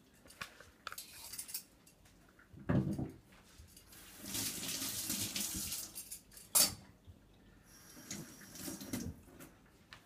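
A kitchen tap runs into a stainless steel sink for about two seconds while a carrot is rinsed. Around it come knocks and clatter of utensils at the counter: a dull thump before the water and a sharp click just after it stops.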